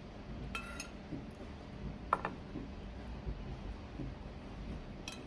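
Metal spoon clinking lightly three times, each tap ringing briefly, as syrup is spooned from a pot over cookies. Under it is a faint low background.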